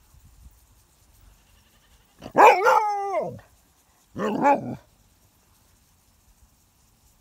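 A dog barking twice at a hedgehog rolled into a ball. The first bark is long and drops in pitch, and a shorter one follows about two seconds later.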